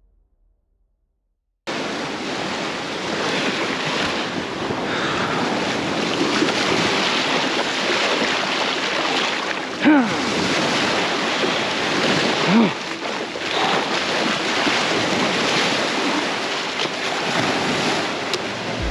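Surf washing onto the beach, with wind buffeting the microphone; it starts abruptly after a moment of silence. Two short cries stand out, about ten and twelve seconds in.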